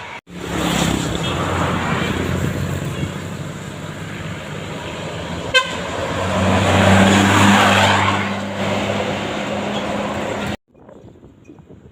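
A large vehicle, most likely a bus, passes close by with engine and tyre noise. The engine's low drone swells to its loudest about six to eight seconds in, then fades. Midway there is one short, sharp blip, and near the end the sound cuts off suddenly.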